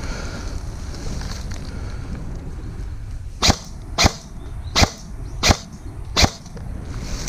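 Airsoft gun firing five single shots in a row, a little under a second apart, starting about halfway through, over a steady rustle of outdoor noise.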